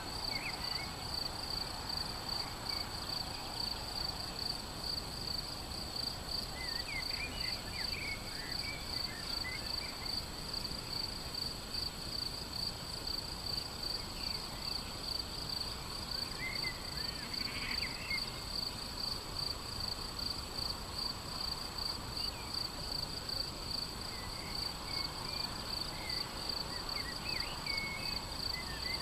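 A cricket chirping in a steady pulsing trill, about two pulses a second, with a few brief bird calls now and then.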